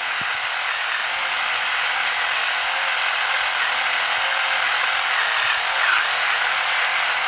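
Flafster battery-powered electric pepper grinder running steadily, its small motor driving the burr as it grinds black peppercorns on the fine setting. The sound is a continuous high-pitched grinding buzz.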